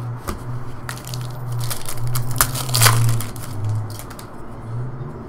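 A foil trading-card pack wrapper crinkling and tearing as it is ripped open, with the densest crackling about two to three seconds in.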